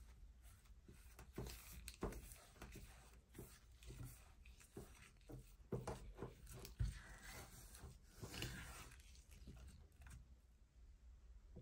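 Silicone spatula stirring and scraping a thick paste of sour cream, cocoa and sugar in a stainless steel saucepan: faint, irregular soft scrapes and light taps against the pan.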